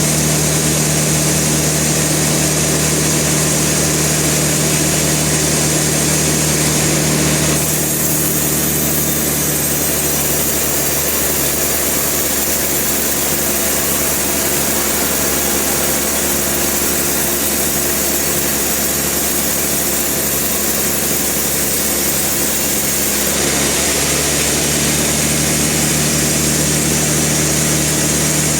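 Sawmill machinery running steadily, an engine with a constant tone. The sound changes from about 8 seconds in until about 23 seconds, with an even low pulsing in the later part of that stretch.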